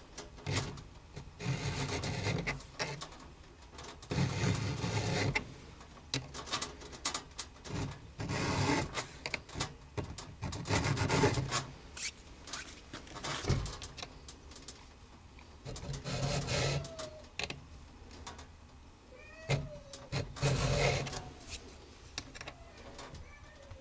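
A hand file rasping across the cutters of a full chisel saw chain, square-filing the teeth. The scraping comes in repeated strokes of about a second each, with short pauses between them.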